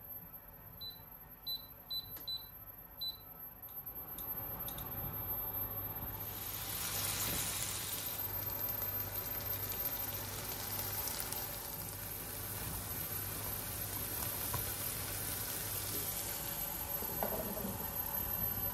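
Touch-control electric hob beeping five times as it is switched on and the heat set, followed by a few light clicks. Then diced tomato and pepper sizzling steadily in a frying pan.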